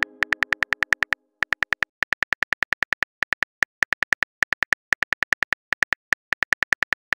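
Phone keyboard typing click sound effects as a text message is typed out, sharp even clicks at about nine a second in runs broken by short pauses. The tail of a message-received chime fades out in the first second.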